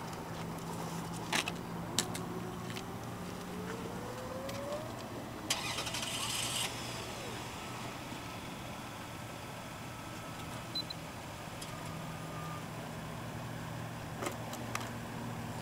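Radio-controlled model airplane's motor and propeller droning in flight, its pitch rising for a few seconds near the start. A few sharp clicks and a brief rush of noise come about halfway through.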